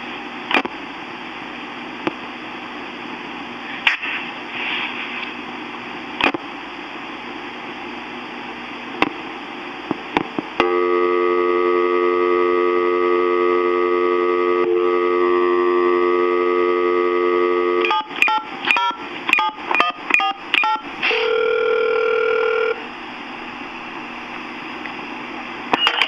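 A Sanyo answering machine plays back its incoming-message cassette. First comes tape hiss with a few clicks. About ten seconds in, a telephone dial tone recorded on the tape holds for about seven seconds. It is followed by a quick run of about ten touch-tone dialing beeps and one steady beep of about a second and a half, then hiss again.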